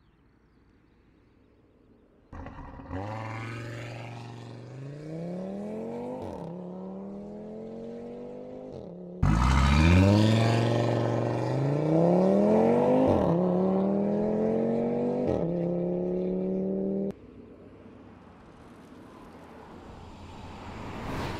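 Audi A3 clubsport quattro concept's turbocharged five-cylinder engine accelerating hard through the gears, its pitch climbing steadily and dropping back at each upshift. It starts about two seconds in, jumps suddenly louder about nine seconds in, and cuts off abruptly near seventeen seconds, leaving a quieter noise of the car on the road that swells near the end.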